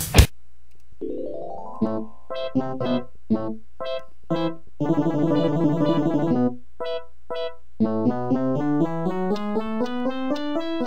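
Electronic keyboard music: a rising run of notes, then short detached notes, a block of sustained chords in the middle, and a climbing pattern of notes near the end.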